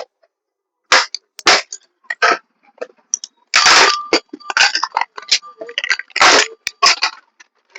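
Plastic computer keyboard being pried apart by hand: irregular sharp plastic cracks and snaps, with a few longer scraping stretches, as the case is opened to get at the membrane sheet inside.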